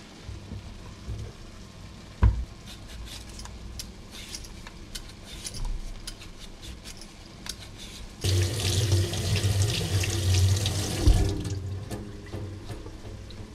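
A potato being peeled over a wooden chopping board, with faint scraping clicks and one sharp knock about two seconds in. About eight seconds in, a kitchen tap runs into a stainless-steel sink for about three seconds while the potato is rinsed and rubbed under it.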